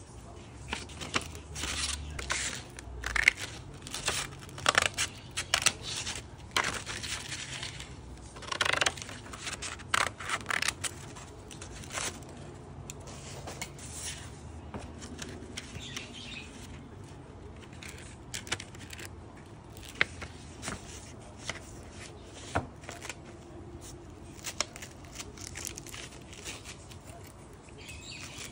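A sheet of sandpaper being folded, creased and handled: sharp paper crackles and rips come thick in the first half, then quieter rustling with scattered clicks and knocks as a DeWalt palm sander is handled to fit the sheet. The sander's motor is not running.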